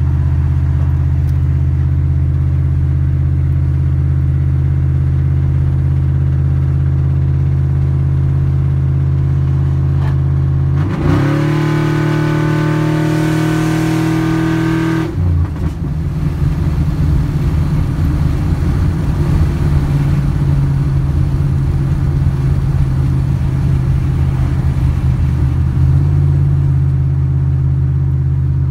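Cammed 5.3-litre V8 of a Chevrolet Silverado pickup heard from inside the cab, running steadily at highway cruise. About eleven seconds in, the revs jump sharply and hold high for about four seconds under throttle, then drop back. The engine then runs rough and uneven for about ten seconds before settling into a steady cruise again.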